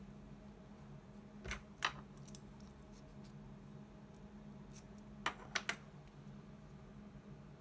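Sharp clicks and taps as small electrolytic capacitors and a slim metal tool are handled on a workbench. There are two clicks a little under two seconds in and a quick run of three about five and a half seconds in, over a steady low electrical hum.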